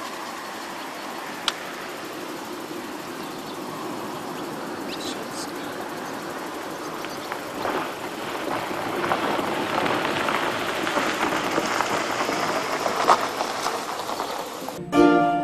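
Outdoor ambience: a steady rushing noise that grows louder through the second half, with one sharp click about one and a half seconds in. Plucked-string music starts at the very end.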